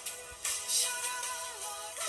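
Background music: a soft electronic pop track with sustained synth tones and a light repeating beat.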